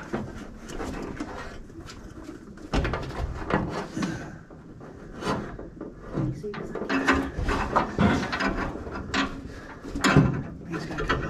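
Irregular knocks, clicks and scraping of parts and tools being handled during work on a car's heater box installation.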